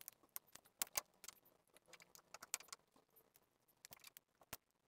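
Near silence with a few faint, scattered clicks and taps as the heat sink is worked off the amplifier board's TDA2030 ICs.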